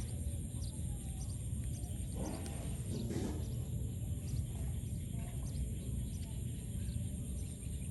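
Outdoor ambience: birds chirping over a steady low rumble, with a short pitched call or cry a little over two seconds in.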